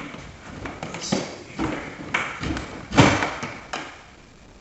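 Irregular thumps and taps of HDMI and RG6 coax cables knocking against the drywall and floor as they are pulled up through a wall box, about one knock every half second, the loudest about three seconds in.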